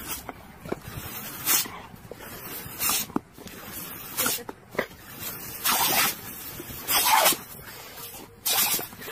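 About six short hissing blasts of spray, roughly one every second and a half, aimed at a dog's open mouth as it snaps at them.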